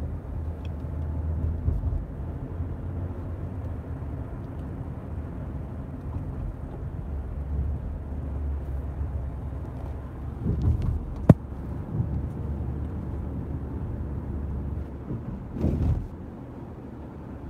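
Steady low road and engine rumble inside a moving car's cabin. A sharp click comes about eleven seconds in, with a few brief knocks around it and again near the end.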